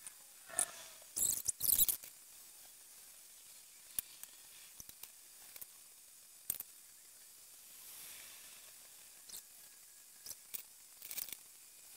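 Felt-tip markers scratching across paper pinned to an easel in short strokes. There are a few louder bursts of strokes near the start and end, a few small clicks in between.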